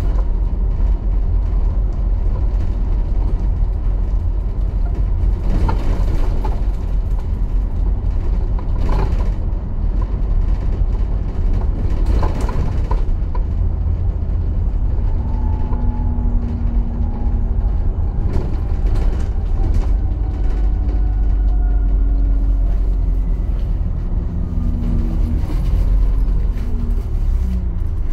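ADL Enviro400 double-decker bus driving, heard from on board: a steady low engine and road rumble with a few knocks and rattles. From about halfway, a whine slowly falls in pitch.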